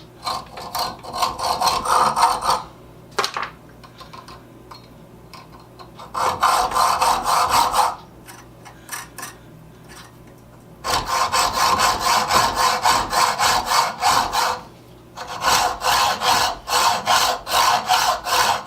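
A small stainless steel screw being cut or shaped with a hand tool: quick back-and-forth strokes of metal on metal, about three or four a second, in four runs of a few seconds each with short pauses between them.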